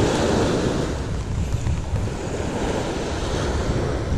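Small waves breaking and washing up a beach, with wind buffeting the microphone in a steady low rumble.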